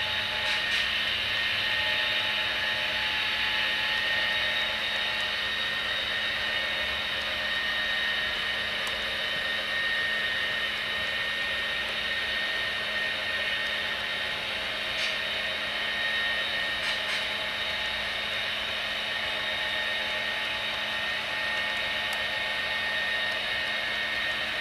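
A steady mechanical whir with fixed pitch, unchanging throughout, with a few faint clicks now and then.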